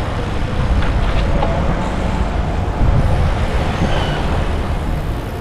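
Steady, loud rushing of wind and road noise on the microphone of a camera carried on a moving bicycle, strongest in the low rumble.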